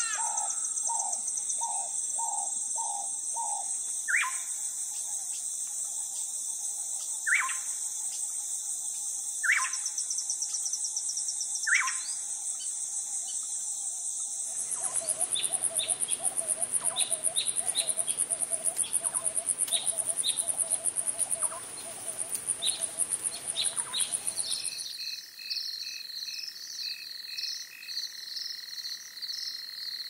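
Natural ambience of insects and birds: a steady high insect drone with a loud bird call every two or three seconds. About halfway through it changes to a fuller chorus of insects with rhythmic chirping calls. Near the end it becomes a different chorus of rapid pulsing calls over a steady high tone.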